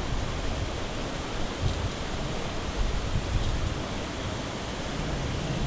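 Steady rushing noise of flowing creek water, even throughout with no distinct events.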